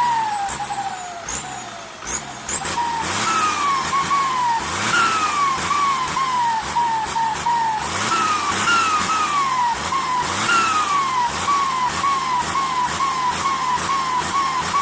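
The turbocharger of an SK200-3 whistles as the engine is blipped over and over. Its pitch sweeps up with each rev and slides back down as it spools off, and the engine note rises and falls underneath. The revving eases briefly about a second in, then picks up again.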